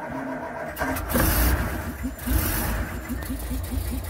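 A vehicle engine starting up: it catches about a second in, revs twice, then settles into a steady idle with an even beat of about five pulses a second.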